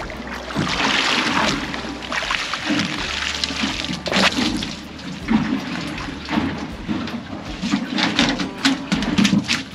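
Water splashing and streaming as a big snapper is scooped up in a landing net and lifted from the sea. Near the end, a quick run of sharp taps and knocks as the netted fish lands on the boat's aluminium checker-plate deck.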